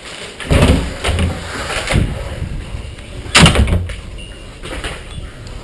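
Handling noise on a head-mounted camera: a few loud thumps and rustles as it is knocked and jostled, the loudest about half a second in and again about three and a half seconds in.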